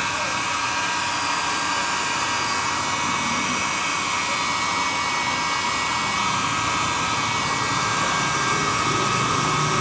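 Handheld hair dryer blowing steadily: a continuous rush of air with a steady high whine from its motor.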